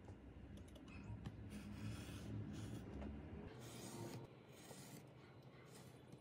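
Pen-style craft knife drawn along a metal ruler, slicing paper on a cutting mat: a few faint scraping strokes.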